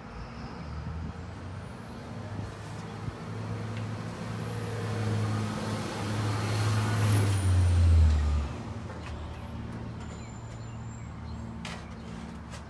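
A vehicle engine running, growing louder to a peak about eight seconds in, then dropping back, with a high thin whine over its first part.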